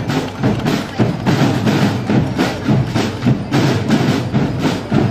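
Marching drum corps of snare drums and bass drum playing a fast cadence of dense, rapid stick strokes, starting abruptly.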